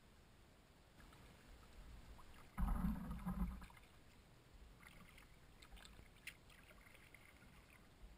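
Kayak on calm water: a splashy paddle stroke about two and a half seconds in, then faint scattered ticks and drips of water.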